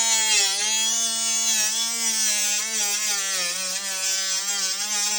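Small power tool spinning a cutoff wheel through a plastic wiper cowl panel. It gives a steady high whine whose pitch dips and wavers as the wheel bites into the plastic.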